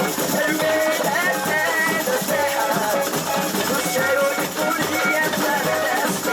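Live samba music: a percussion section with shakers, rattles and drums plays a steady groove under melodic lines, possibly with singing.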